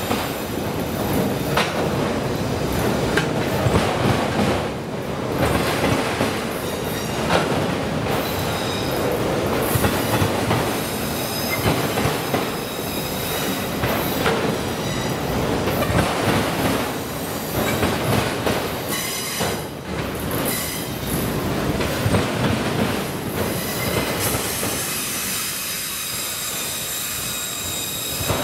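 Freight cars of a slow CSX freight train rolling over a railroad track crossing: the wheels knock out an uneven run of clacks, with thin high steel-wheel squeal running through. The squeal grows stronger near the end.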